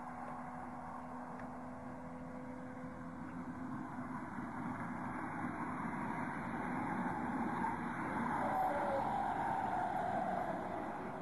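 A car speeding closer, its engine and tyres growing louder until a falling whine about eight to ten seconds in as it goes by, over a steady hiss.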